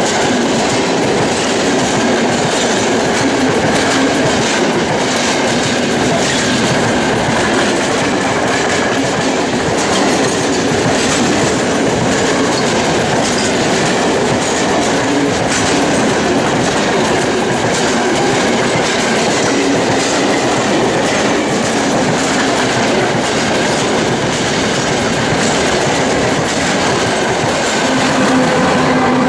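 Long freight train of open wagons rolling past close by: a steady rumble with the clatter of wheels over rail joints. Near the end the pushing CFR Class 40 electric locomotive passes, adding a steady hum.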